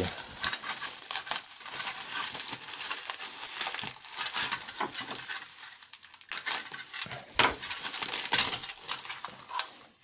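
Bubble wrap crinkling and rustling as hands unwrap it: a dense crackle of small clicks, easing briefly a little past halfway and then picking up again.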